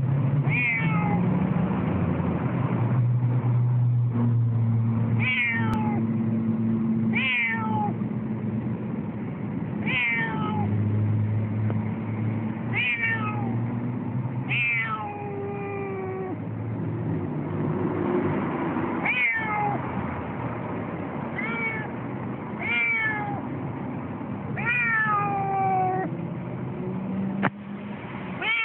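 Siamese cat meowing loudly and persistently in protest, about a dozen drawn-out calls falling in pitch, one every two to four seconds. A low steady hum runs underneath.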